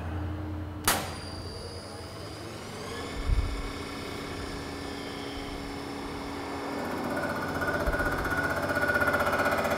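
Cylinder-head resurfacing machine: a click about a second in, then its motor spins up to a steady whine. From about seven seconds in, a louder ringing whine builds as the rotary cutter works across the deck of the cylinder head, taking off the last of about 8 thousandths of warp.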